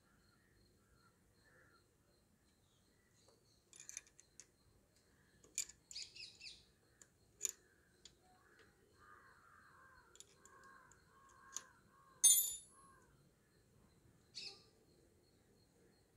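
Scattered metallic clicks and clinks as the gear-shift linkage of a Bajaj Dominar 400 is worked loose and removed by hand, the sharpest, ringing clink about twelve seconds in. A bird calls a few times in the background midway.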